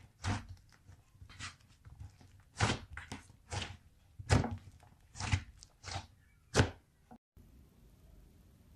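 Butter slime being handled, a series of short sticky pokes and slaps about once a second that stops suddenly about seven seconds in.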